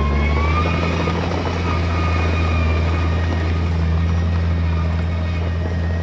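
Diesel engine of earthmoving machinery running steadily under load: a deep, continuous drone with a faint whine that rises slightly about a second in, then holds.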